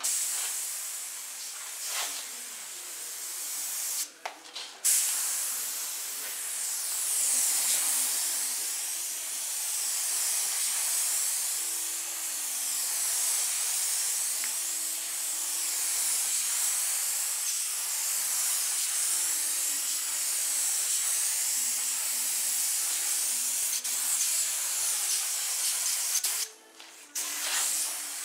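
Compressed-air spray gun hissing steadily as it sprays textured Raptor bed-liner coating onto a car body. The trigger is let off briefly twice, about four seconds in and again near the end.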